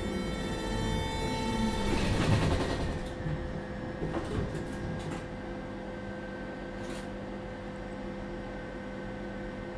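Tatra T4D-C tram heard from inside. Running noise with several steady whining tones swells and then dies away about three seconds in, leaving a lower steady hum broken by a few clicks and knocks.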